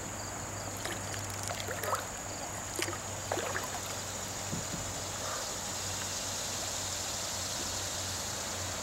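Steady rush of water running over a shallow, rocky river riffle, with a few faint short sounds in the first few seconds.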